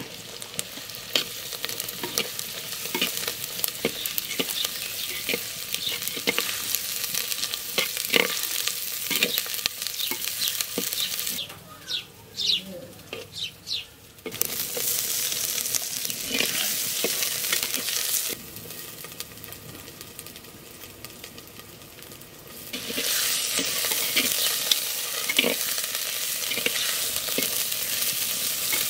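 Spices and river crab pieces sizzling as they fry in oil in a clay pot, with a steel spoon stirring and scraping against the pot. The sizzle drops away twice in the middle and comes back louder about three-quarters of the way through.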